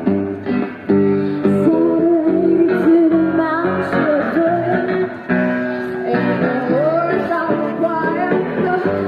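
A busker singing a melody to a strummed acoustic guitar.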